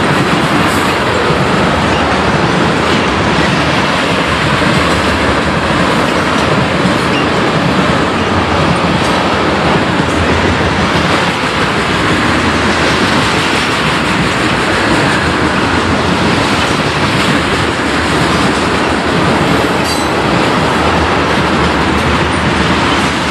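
Loaded railroad tank cars of a freight train rolling past: a steady, loud rumble and rattle of steel wheels on the rails.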